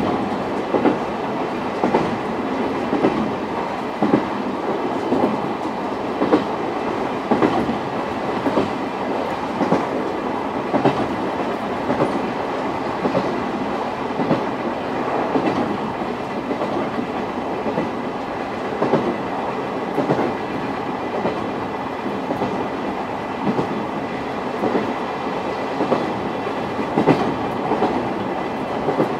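Running sound inside an old JNR SuHaFu 42 passenger coach: a steady rumble of wheels and bogies on the rails, with clickety-clack over the rail joints about once a second.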